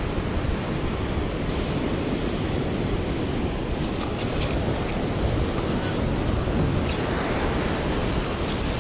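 Ocean surf washing up a sandy beach, a steady rush of breaking waves, with wind buffeting the microphone. A few faint clicks about four seconds in.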